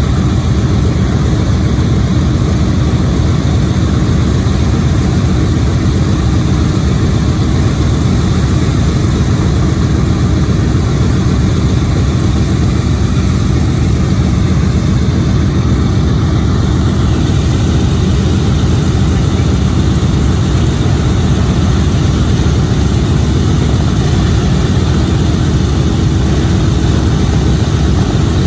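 Boeing B-17G Flying Fortress's Wright R-1820 Cyclone nine-cylinder radial engines idling on the ground with propellers turning: a loud, steady, deep rumble.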